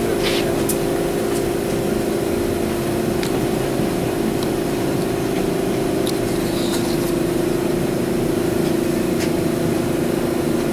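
A steady mechanical hum with a constant pitched drone, with a few light clicks and taps scattered through it.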